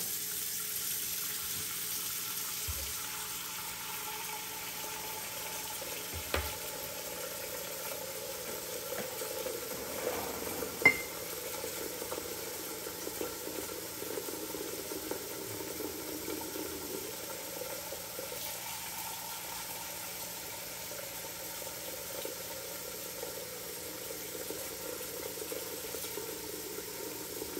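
Tap water running steadily into a large cooking pot, with one sharp knock about eleven seconds in.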